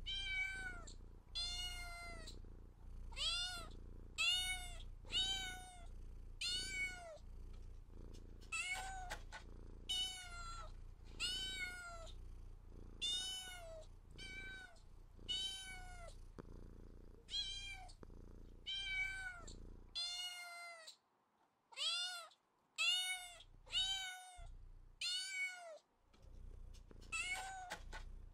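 Domestic cat meowing over and over, about one meow a second, each rising then falling in pitch. A low steady background noise under the meows cuts off about two-thirds of the way through.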